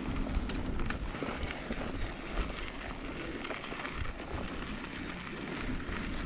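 Mountain bike rolling fast down a dry dirt singletrack: tyres running over loose dirt and small stones, with short knocks and rattles from the bike over bumps and a low rumble of wind on the microphone.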